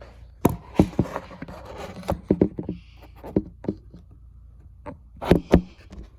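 A string of irregular knocks and clicks with brief rustling between them, the sharpest about half a second in and a close pair a little after five seconds: handling and moving about while setting up to film.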